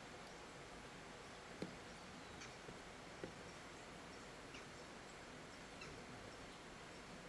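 Near silence: a faint steady background hiss with a couple of soft clicks and a few faint, very short high chirps.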